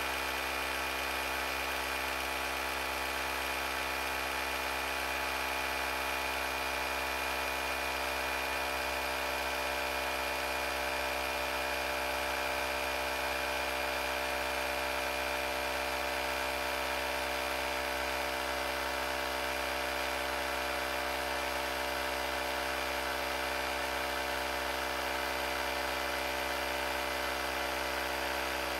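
AUTOOMMO cordless tire inflator's small electric compressor running steadily under load, pumping up a flat motorcycle front tire.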